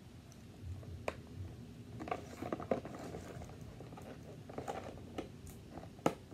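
Fingernails picking and scratching at the flap of a small cardboard box, with scattered light clicks and ticks and a sharper click near the end.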